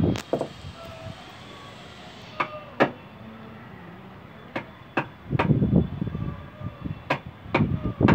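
Hammer striking a chisel held against a wooden plank, cutting into the wood: sharp blows, mostly in pairs about every two and a half seconds, with a stretch of rough knocking and scraping a little past halfway.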